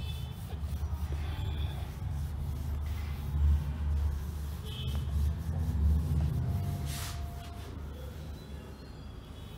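Whiteboard being wiped with a hand-held duster: uneven rubbing strokes over a low rumble that swells and fades.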